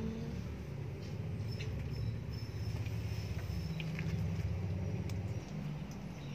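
Low, steady engine hum of a vehicle running, its pitch shifting a few times, with a few faint small ticks over it.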